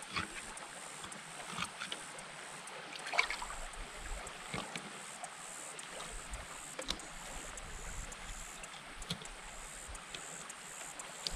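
Soft water lapping against a small boat's hull, with scattered light clicks and scrapes of a fillet knife cutting into a bowfin, the loudest cluster about three seconds in.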